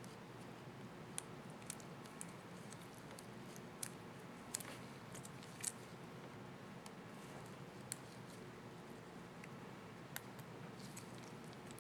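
Faint, small plastic clicks and taps, about eight spread irregularly, from handling a laptop keycap and its hinge clips, over a low steady hum.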